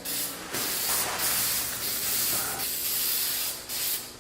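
Aerosol spray paint can hissing as paint is sprayed onto plastic tubing in a light coat: one long spray of about two and a half seconds, then a shorter burst near the end.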